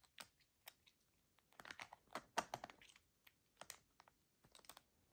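Faint, irregular light plastic clicks and taps from a white-faced capuchin's fingers working the sliding tiles of a plastic puzzle feeder.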